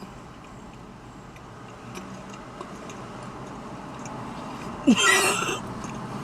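Quiet cafe background with a few faint clicks, then about five seconds in a short, loud wordless vocal exclamation with a rising pitch, a reaction on tasting a cookie.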